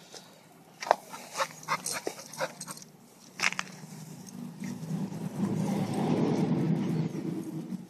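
English bull terrier nosing about: a run of short, sharp clicks and ticks, then from about halfway through a few seconds of louder, close snuffling and rustling as it sniffs through grass.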